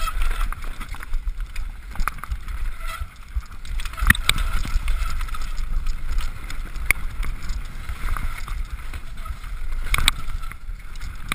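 Downhill mountain bike ridden fast over a dirt trail, heard from an on-bike camera: a steady rumble of wind buffeting the microphone and tyres on dirt, with the bike rattling over bumps and sharp knocks about four seconds in and again near the end.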